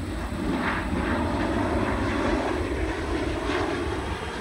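Jet noise from a Boeing 737-700's twin CFM56-7B turbofans at takeoff thrust as the airliner climbs out, a steady rushing rumble.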